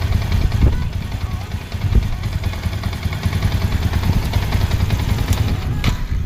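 Yamaha Sniper 150's liquid-cooled single-cylinder four-stroke engine idling steadily, on a test run after its water pump seals, impeller and gaskets were replaced to stop coolant mixing into the oil.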